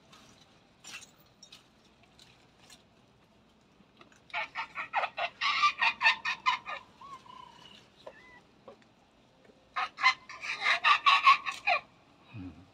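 A chicken cackling in two bouts of rapid, repeated clucks, the first about four seconds in and the second near ten seconds.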